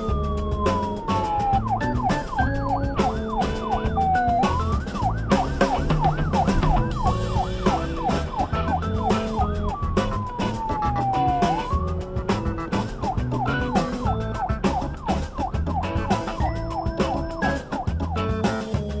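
Emergency-vehicle electronic siren on a fire-rescue truck. It alternates between a slow wail falling in pitch and a fast yelp of quick rises and falls, dropping into the slow wail again about ten seconds in. Background music plays underneath.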